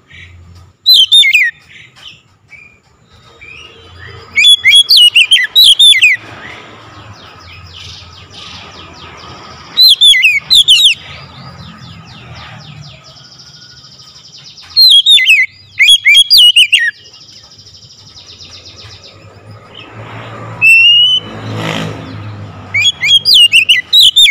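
Male oriental magpie-robin singing loudly, in short bursts of sharp, quickly falling whistled notes every few seconds, with pauses between phrases.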